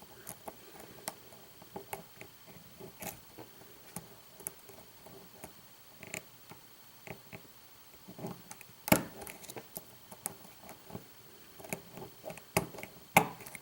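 A lock pick working the pins of a pin tumbler challenge lock under tension: scattered faint clicks and ticks, with a sharper click about nine seconds in and a few more near the end as the core goes into a false set.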